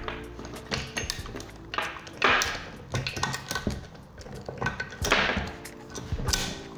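Saw chain clinking and rattling as it is fitted around the guide bar and drive sprocket of a Huter BS-45M chainsaw, with scattered metallic taps and knocks and a few short scraping rushes as the chain slides along the bar.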